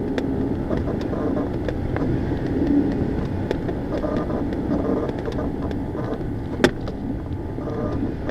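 Steady rushing wind noise with a low hum in the cockpit of a Ka-8 glider in flight, and one sharp click about six and a half seconds in.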